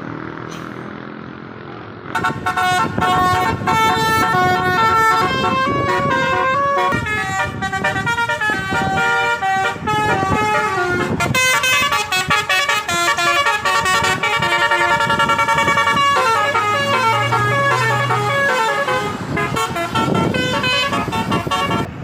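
Tour bus's multi-tone telolet (basuri) air horn playing a melody of stepping notes. It starts about two seconds in and stops shortly before the end.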